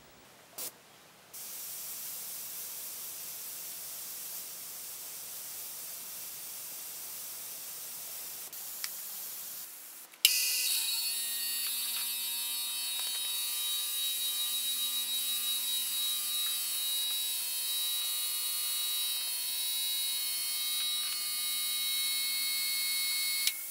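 Gravity-feed airbrush spraying ink: a steady hiss of air starts about a second in. After a sharp click about ten seconds in it grows louder, with steady whistling tones running through it, and it cuts off suddenly near the end.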